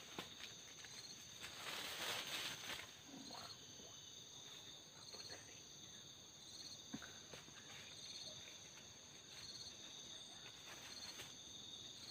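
Insects calling in forest undergrowth: a steady high-pitched drone with a short pulsed chirp repeating about once a second. Brush rustles briefly about two seconds in.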